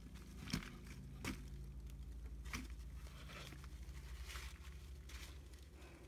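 Hands handling a cloth shipping bag, the fabric rustling, with a few sharp clicks, the first two about half a second and a second and a quarter in.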